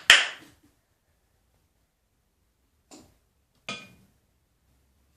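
Plastic soap bottle handled and squeezed: a sharp click and a brief hissing squirt at the start, then two faint soft knocks about three seconds in.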